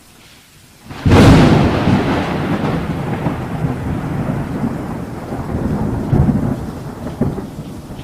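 A sudden loud crash about a second in, followed by a continuous low rumbling noise that swells a few times.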